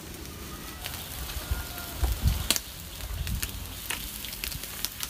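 Skewered meat grilling over charcoal embers: a steady sizzle with scattered crackles and pops. A low rumble comes in about two seconds in and lasts for a second or so.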